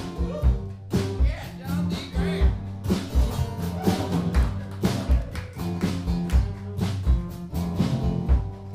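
A live band plays an instrumental passage: acoustic guitars over bass and a steady kick-drum beat.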